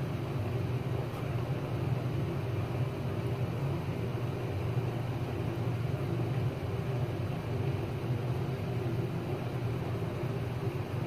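Steady low background hum of room noise, even throughout with nothing standing out above it.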